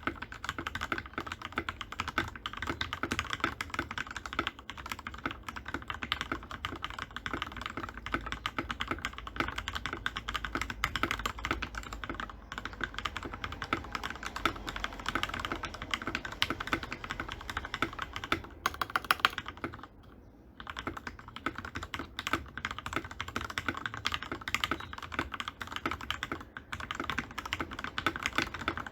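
Fast, continuous typing on a custom mechanical keyboard with lubed Gateron Milky Yellow linear switches and doubleshot PBT keycaps. There is a short pause about two-thirds of the way through.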